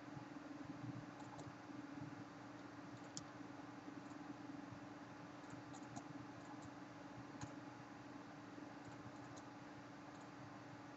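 Faint room tone: a steady low hum and hiss, broken by a few faint, scattered clicks.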